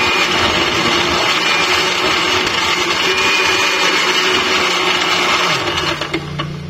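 Electric blender with a glass jar running steadily, blending a thick fruit-and-milk shake. The motor switches off and winds down about six seconds in.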